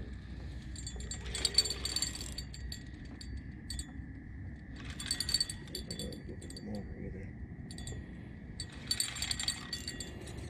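Light metallic clinking and ticking from a spinning reel and rod being handled, in three short spells, about a second and a half, five and nine seconds in, over a low steady hum.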